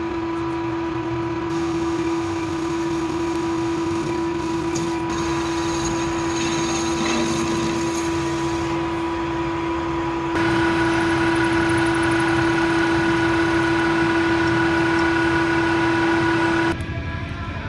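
Small metal lathe running with a steady motor hum while turning a metal part with a carbide-insert tool. About ten seconds in the sound steps louder with an added higher whine. Near the end it drops abruptly, and a drill held in a chuck bores into the spinning part.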